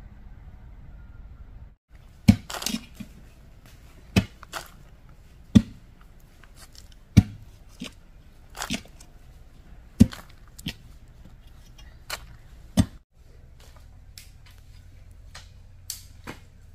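Digging into hard, stony soil to make a post hole: sharp strikes into the ground about every one and a half seconds, some followed by a short rattle of loose stones and earth. They begin about two seconds in, and only a few fainter ticks remain near the end.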